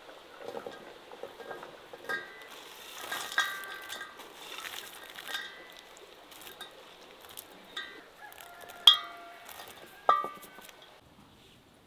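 Chopped vegetables pattering into an enamel basin, with the enamel plate clinking against the basin several times, each knock leaving a short metallic ring; the two loudest knocks come near the end.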